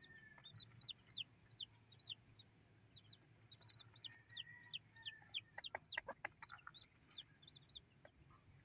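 Newly hatched native chicken chicks peeping: many short, high chirps that fall in pitch, several a second, faint. About six seconds in there is a quick run of sharp ticks.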